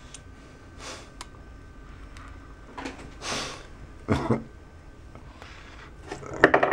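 A few short, separate breaths and muffled mouth noises from a man while a capuchin monkey's fingers probe his mouth, with a cluster of small clicks and a louder sound near the end.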